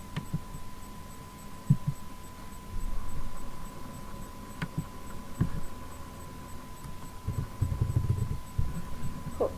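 Steady electrical hum, a thin high tone, with scattered low thumps and rumbles and a couple of faint clicks.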